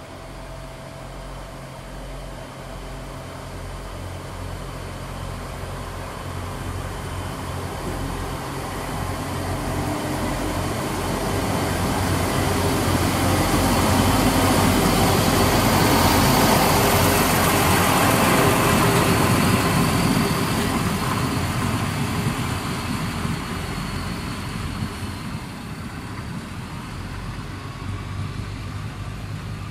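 NE 81 diesel railcar pulling through the station past the listener. Its diesel engine and running gear grow steadily louder and are loudest about halfway through, then fade as it draws away.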